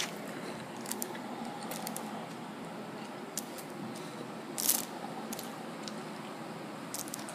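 A paper burger wrapper crinkling as it is handled, in a few short, sharp crackles, the loudest about four and a half seconds in, over a steady background hiss.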